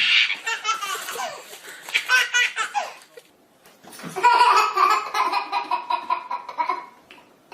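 A baby laughing hard in repeated rapid fits, pausing about three seconds in, then breaking into a second long bout of laughter.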